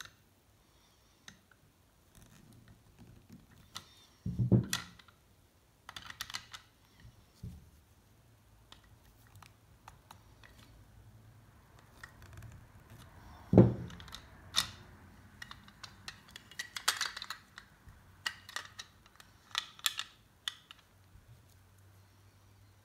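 Pliers working on a small pressed-steel toy truck's chassis and axles: scattered light metal clicks and taps, with two louder knocks about four and a half seconds in and again near the middle.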